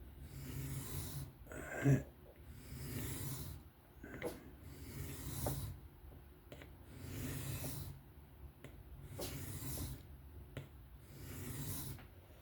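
Knife blade of M390 steel being drawn across a diamond sharpening plate in slow freehand passes, a scraping stroke about every two seconds, with a short sharper tick about two seconds in.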